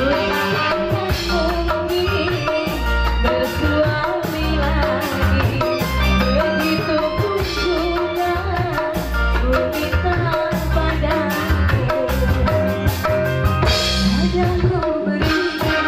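Live band music with a female vocalist singing over a steady drum and hand-percussion beat; near the end a second female singer takes over the vocal line.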